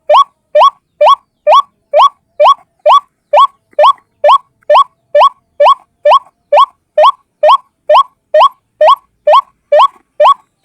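White-breasted waterhen (ruak-ruak) calling, one bird repeating a short rising note evenly about two to three times a second.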